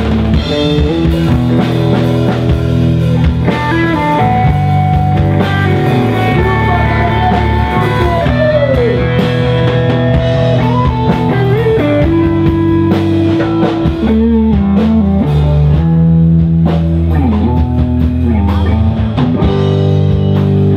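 Live rock band playing loud and continuous on electric guitars and a drum kit, with a guitar note sliding down about nine seconds in.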